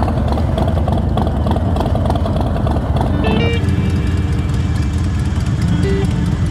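Motorcycle engine running steadily as the bike is ridden along the road.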